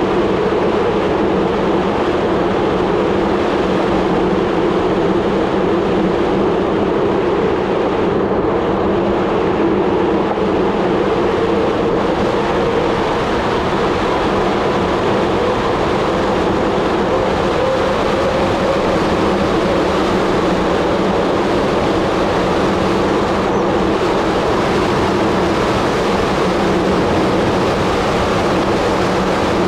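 Steady rush of wind over the microphone, with a low tyre hum, from a Merida bicycle rolling fast downhill on asphalt.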